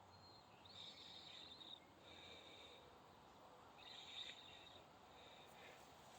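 Near silence, with faint high chirping in the background a few times.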